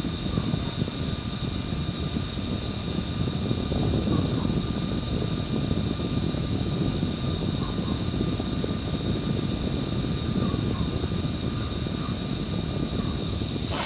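Small electric fan running: a steady whir of the blades with a thin, high motor whine over it. A single sharp click comes near the end.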